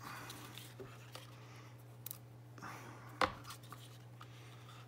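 Faint handling of plastic wire connectors and a wiring harness, scratching and rustling, with one sharp click about three seconds in.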